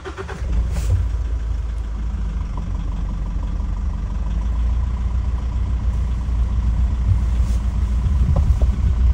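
Game-drive vehicle driving, a steady low rumble of engine and road heard from on board.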